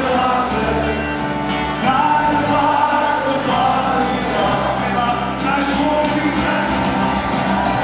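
Live acoustic band music with accordion, acoustic guitars and a drum, with singing, played loud and continuous with held chords.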